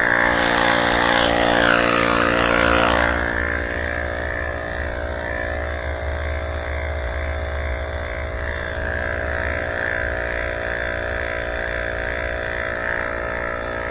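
Electric air pump running steadily with a motor hum, inflating an e-bike inner tube; a louder hiss over the first three seconds, after which the hum settles.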